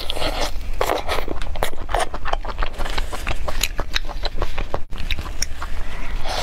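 Close-miked eating: biting into and chewing chili-seasoned chicken, with many short clicks and smacks, and the scraping of tearing meat and plastic-gloved hands.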